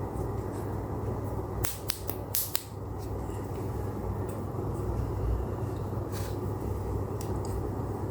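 Steady low background rumble, with a quick cluster of sharp crackles and clicks about two seconds in and a few fainter clicks later, typical of packaging being handled during an unboxing.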